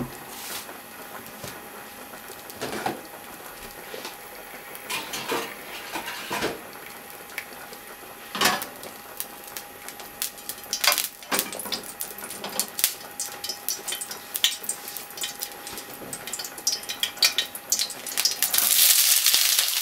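A frying pan of oil heating on a gas burner, with scattered light clicks and knocks of the pan being handled and swirled. Near the end sliced onions go into the hot oil and set off a loud sizzle.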